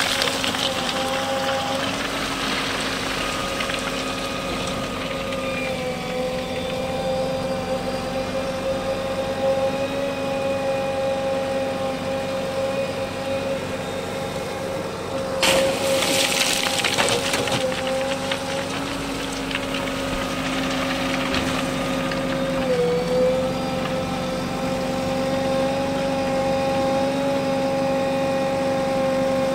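JCB backhoe loader running steadily at work, with a steady engine hum and whine. Its pitch dips briefly about two-thirds of the way through. Around the middle a sudden harsh rasping noise lasts about two seconds and is the loudest moment.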